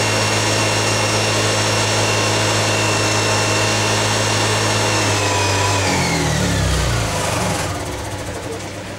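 Honda EX5500 generator engine running steadily, then shut off about five seconds in, its pitch sliding down as it runs to a stop.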